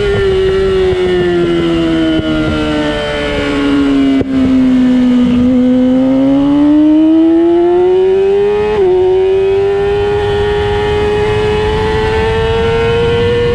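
A high-revving track vehicle's engine, heard onboard during a lap. The engine note falls for about five seconds as it slows for a corner, then climbs steadily under acceleration, with a brief break about nine seconds in at a gear change.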